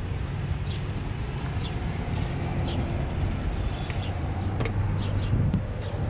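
A steady low hum, with short high chirps from small birds scattered through it.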